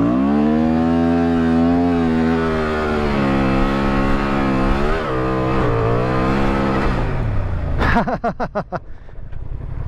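Honda Transalp 750's parallel-twin engine revving hard under full throttle in sand, with traction control switched off. The engine note climbs sharply at the start and holds high and wavering for about seven seconds, with a brief dip and pick-up around five seconds. It then drops away near eight seconds to a lower, steady running note.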